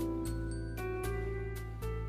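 Background music with a steady beat and bright bell-like notes.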